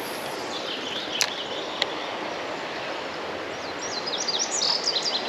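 Steady rush of flowing creek water, with a couple of sharp clicks about a second in. A bird sings a rapid run of short, high chirps from near the end.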